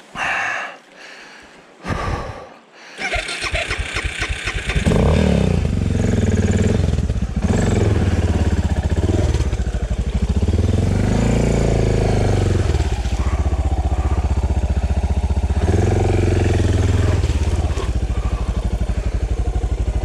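Suzuki DR650's single-cylinder engine cranking and catching about three seconds in, then running, its pitch rising and falling with the throttle.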